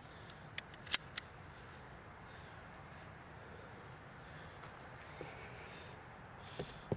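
Crickets or other insects chirring steadily, with three short sharp cracks around the first second.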